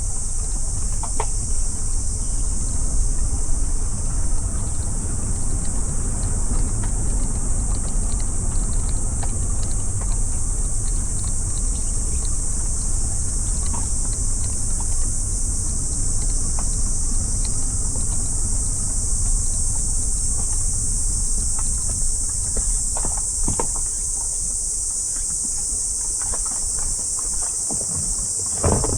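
A car driving with a steady low road-and-engine rumble and small scattered clicks, under a constant high-pitched insect chorus. There is a brief louder knock near the end.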